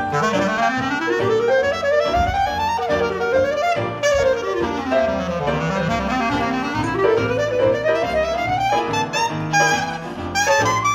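Clarinet playing a jazz solo, its line running up from the low register in long sweeps, falling back and climbing again, over double bass and band accompaniment.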